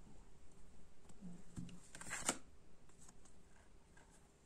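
Faint rustle of paper oracle cards as a hand runs along a spread deck and slides one card out, with a brief louder scrape of card on card about two seconds in.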